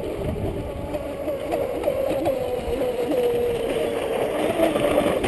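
Brushless electric RC speedboat running on the water: a steady motor whine that wavers in pitch with the throttle, with a lower tone near the end.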